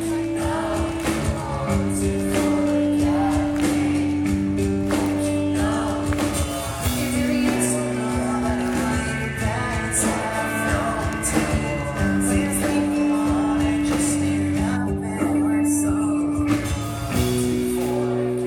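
Pop-punk band playing live, with singing over the band.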